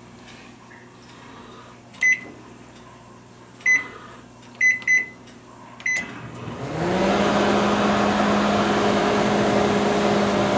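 Panasonic Genius inverter microwave oven: five short keypad beeps as the timer is set to 15 minutes, then, about seven seconds in, it starts heating at full power with a steady hum and fan noise.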